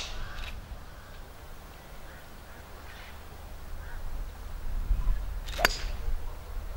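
Golf iron striking the ball off the turf: one sharp click about five and a half seconds in, over a low wind rumble on the microphone.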